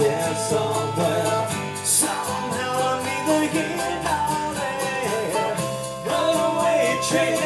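Acoustic guitar strumming and mandolin picking together in an instrumental passage with no sung words.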